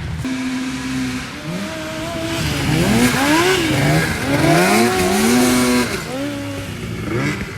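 Engine of an engine-swapped Honda Odyssey buggy revving hard on dirt, its pitch climbing and dropping back several times as the throttle is worked, loudest in the middle.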